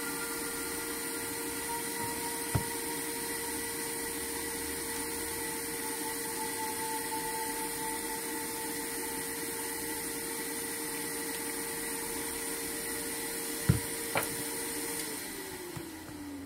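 Steady whine and hum of a small electric motor, with a few sharp clicks. Near the end the motor's pitch falls steadily and it grows quieter, as when it winds down after being switched off.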